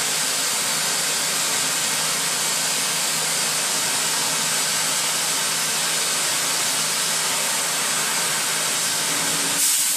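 Oxy-fuel cutting torch flame hissing steadily while it preheats the steel plate. Near the end the hiss changes abruptly as the cutting oxygen is turned on to pierce and start the cut.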